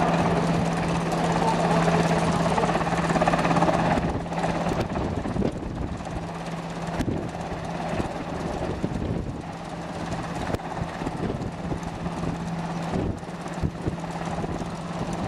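Sikorsky S-92 rescue helicopter hovering low over the sea during a winch exercise, its rotors and turbines making a steady drone with a low hum. The sound gets quieter about four seconds in.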